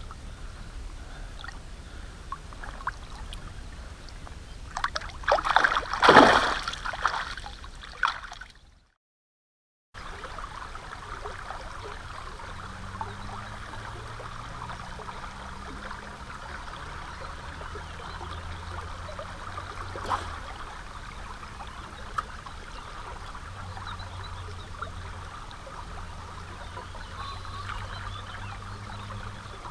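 Water splashing loudly a few seconds in as a freshly caught asp is let go in shallow river water, then a second of silence. After that, river water runs steadily with a light trickling around a stone groyne, and a faint low hum comes and goes.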